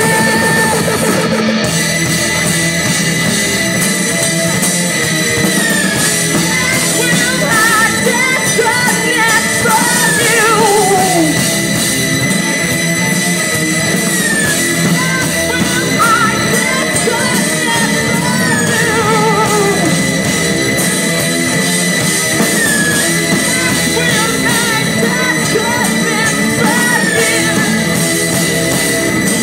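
Live rock band playing loudly: drum kit, electric guitar and singing. A sustained high tone runs through it, dipping in pitch and coming back up several times, with sliding, falling tones around the middle.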